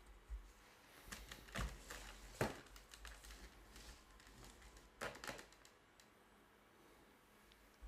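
Faint scattered clicks and light knocks of a UNI-T UT61E multimeter's plastic case and parts being handled while it is taken apart. The sharpest knock comes about two and a half seconds in, and a short cluster of clicks about five seconds in.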